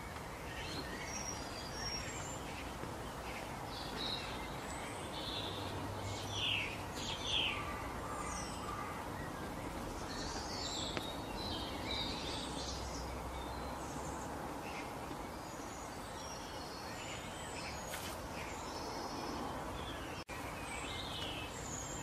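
Birds chirping and calling over a steady outdoor background hiss: many short, high calls scattered throughout, the loudest a few quick calls about six to eight seconds in.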